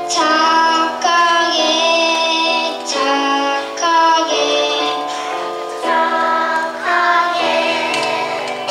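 A child singing a slow melody into a microphone, each note held for about half a second to a second.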